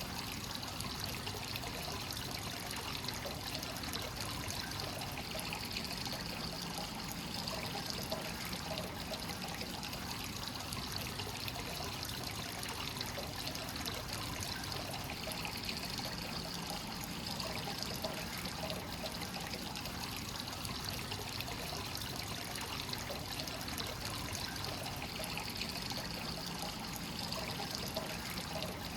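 Hot-spring source water pouring steadily into an onsen bath from its free-flowing inflow, a continuous splashing trickle.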